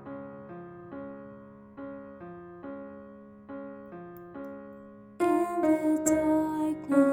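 Piano-style keyboard accompaniment playing a series of struck chords, each fading before the next. About five seconds in, a woman's mezzo-soprano voice enters singing with vibrato over the keyboard.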